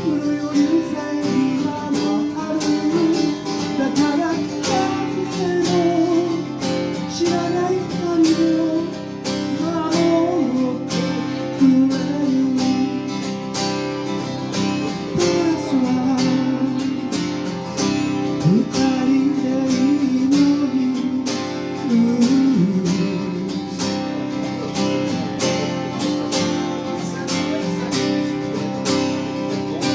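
Acoustic guitar strummed steadily in a live song, with a wavering melody line carried over the chords.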